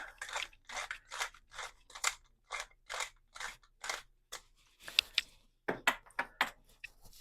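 Pepper mill grinding peppercorns: a run of short crunchy rasps, about two to three a second, with a brief pause and a quicker flurry of twists near the end.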